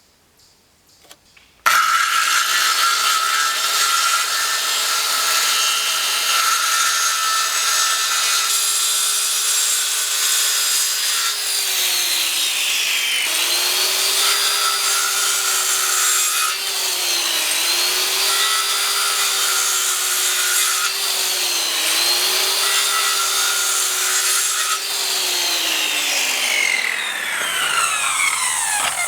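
Circular saw starting up and cutting wood. Its motor pitch dips three times under load, then winds down near the end.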